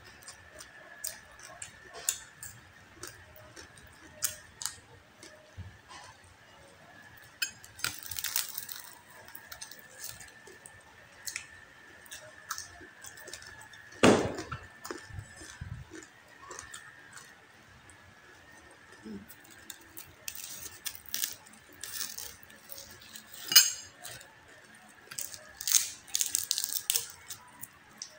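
Close-up eating sounds: crispy pata (deep-fried pork leg) crackling being chewed and torn by hand, many small clicks and crackles with denser crunchy stretches. There is a louder knock about halfway through.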